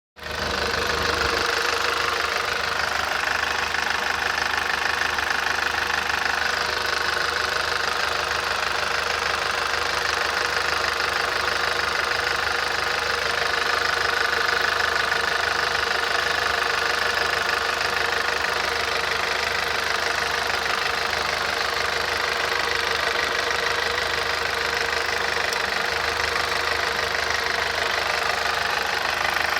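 Audi TT 225 quattro's 1.8-litre turbocharged four-cylinder engine idling steadily with a knocking noise, a fault that has only just started.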